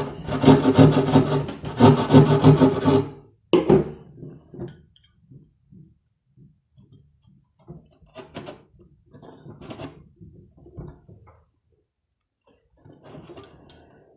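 Jab saw rasping through drywall in quick strokes for about three seconds, shaving the edge of an outlet hole. After that come faint scrapes and taps as a metal electrical box is pushed into the hole for a test fit and pulled back out.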